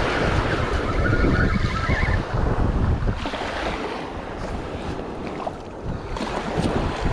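Small surf waves washing up on a sandy beach, with wind buffeting the microphone in low rumbles.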